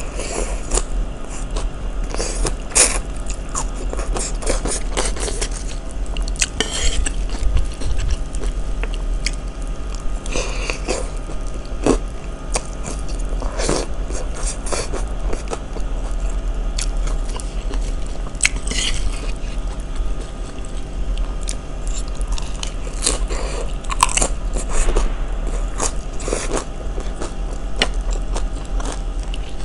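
Close-miked chewing and crunching of mouthfuls of asinan sayur, crisp fresh raw vegetables such as cabbage and lettuce in peanut sauce, with wet crunches all through.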